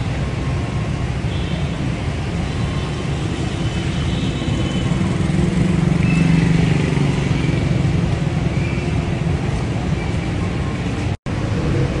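Road traffic: a steady rumble of vehicle engines, swelling a little about halfway through, with a brief dropout near the end.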